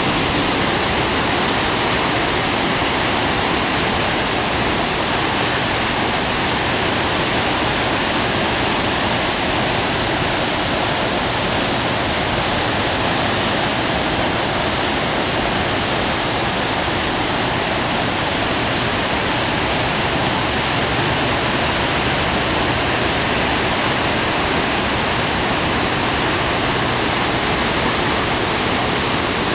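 Spokane River whitewater rapids running near flood stage, a loud, steady rush of high water that does not let up.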